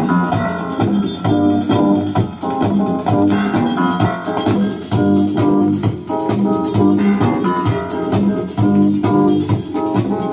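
Music with a steady beat played from a 45 rpm vinyl single on a Philips 582 stereo record player, heard through its speakers.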